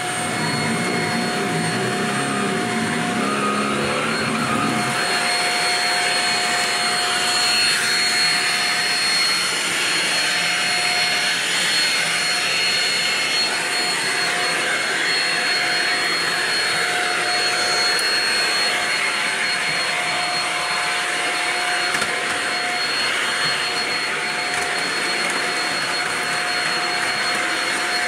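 Shark DuoClean vacuum cleaner running steadily, a dense suction rush with a constant high motor whine. A lower rumble sits under it for the first five seconds or so while the brush head works over a shaggy bath mat.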